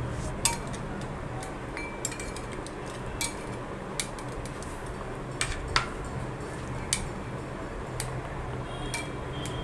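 Metal tongs tapping and clinking against a glass bowl while mutton chops are dipped in beaten egg. The sharp clicks come scattered, roughly one a second, over a steady low background hum.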